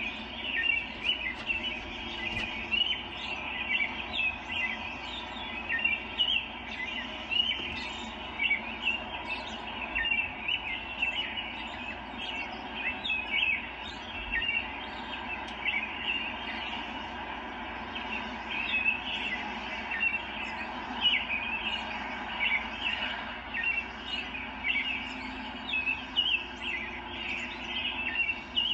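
Woodland birdsong from a wildlife video playing on a television: many small birds chirping in quick, overlapping calls, without a break.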